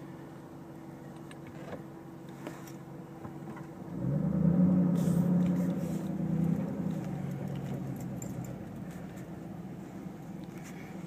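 The supercharged 5.4-litre V8 of a stock 2011 Shelby GT500 idles, heard from inside the cabin. About four seconds in it is revved up sharply and held briefly, then falls back to idle over the next few seconds.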